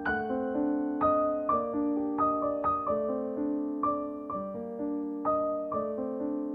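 Background piano music: a gentle, unhurried melody of single struck notes over held lower notes, a new note about every half second, each ringing and fading.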